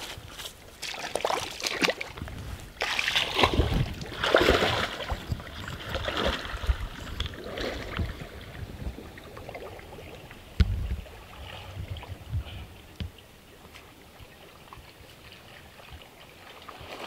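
Water sloshing and splashing as a person wades through a shallow lily pond, in irregular swishes that are loudest over the first several seconds and then settle into quieter lapping. A dull thump about ten and a half seconds in.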